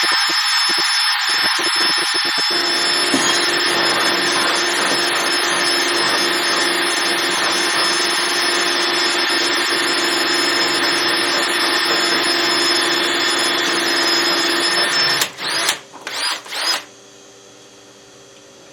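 Handheld power tool running steadily at full speed, then released about fifteen seconds in, with a few short bursts that rev up and down before it stops.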